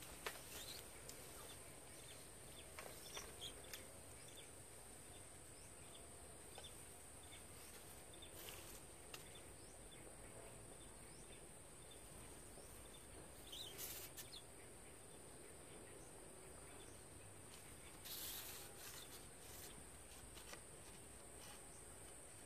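Near silence: quiet outdoor ambience with a steady high-pitched insect drone, a few faint clicks, and two brief rustles in the second half.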